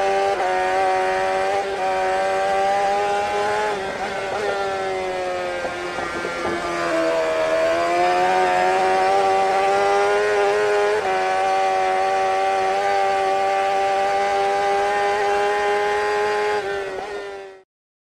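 An engine held at high revs with a steady pitch that sags and climbs back around the middle, then fades out quickly near the end.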